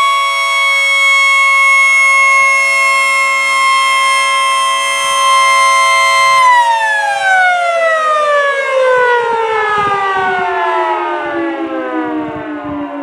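Sentry F2 outdoor warning siren sounding a steady tone, then winding down about six and a half seconds in, its pitch falling steadily.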